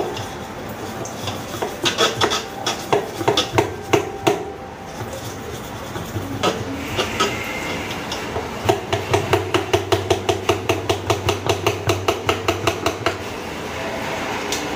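A bottle brush scrubbing the inside of a metal water bottle, its stick knocking and rattling against the neck in quick strokes. The strokes are irregular at first, then settle into a fast, even rhythm of about five a second for several seconds.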